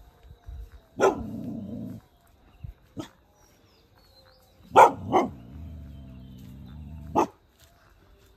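Village dogs barking sharply: five barks a second or two apart, two of them in quick succession near the middle. A low, drawn-out sound follows the first bark and comes again between the last barks.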